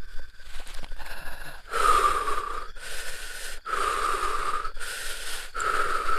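A man breathing heavily close to the microphone: loud, hard breaths in and out, about one a second, starting about two seconds in.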